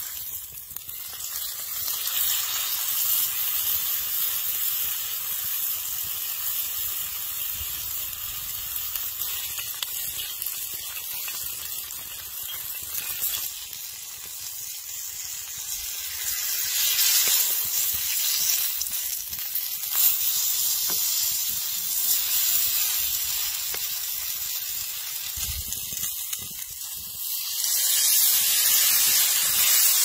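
Tomahawk steak sizzling on a hot flat-top griddle, a steady hissing sear. The sizzle swells louder a little past halfway and again near the end.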